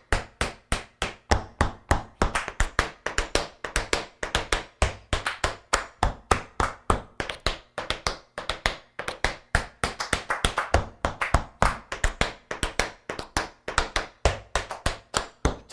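Tap dancing in metal-plated tap shoes on a hardwood floor: a fast, even stream of crisp taps, several a second.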